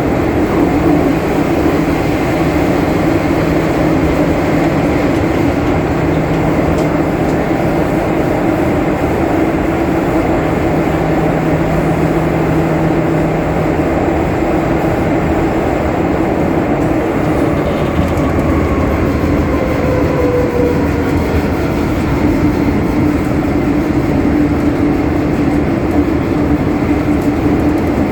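Disneyland Resort Line M-train (Metro-Cammell, with GEC GTO chopper traction control) running between stations, heard from inside the car: a steady rumble with a constant traction hum. A faint tone glides down in pitch a little past the middle.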